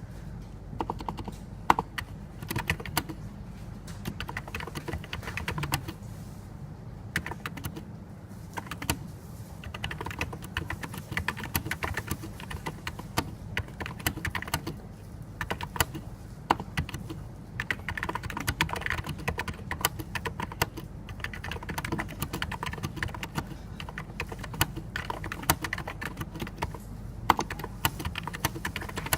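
Typing on a NiZ Plum 84, a Topre-style electrostatic capacitive keyboard with rubber-dome switches: a continuous run of irregular keystrokes with a few short pauses and some louder strokes, likely the space bar or other large keys.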